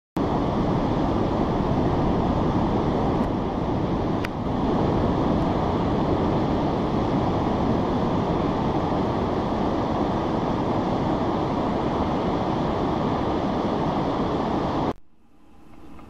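Ocean surf and wind on the microphone, a loud steady noise that cuts off suddenly near the end.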